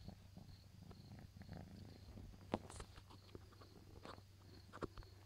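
Faint scuffling and scattered small clicks of a kitten wrestling a bra on carpet, with a couple of sharper ticks, over a steady low hum.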